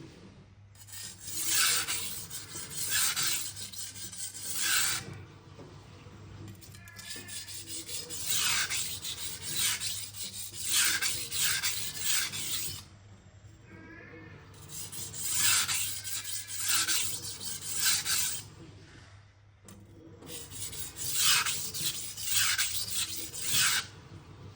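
Knife steel scraping across a coarse Cheefarcut 400-grit vitrified diamond whetstone in repeated sharpening strokes: four runs of several strokes each, with short pauses between. These are the light passes that minimize the burr before moving to a finer stone.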